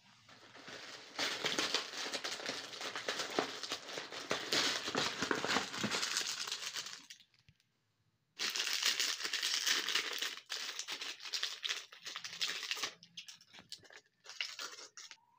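Plastic candy wrapper crinkling as a chocolate tray pack is handled and opened, in two long stretches with a short silent gap about halfway. Near the end only scattered crackles and clicks remain.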